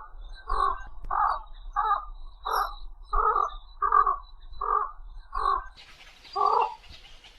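A bird giving a steady series of about ten short calls, roughly one every 0.7 seconds, with faint high chirps behind them.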